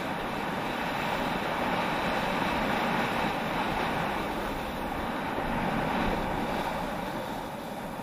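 Steady scraping hiss of sliding downhill over packed snow, with wind on the microphone; it swells slightly about six seconds in and eases near the end.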